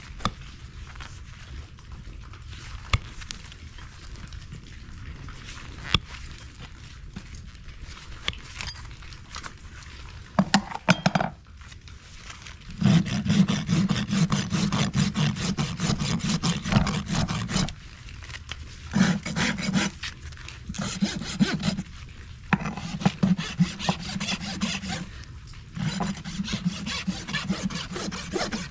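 Farrier's hoof rasp filing a horse's hoof, in runs of rough back-and-forth strokes with short pauses between them. It starts a little under halfway in, after a quieter stretch with only scattered clicks.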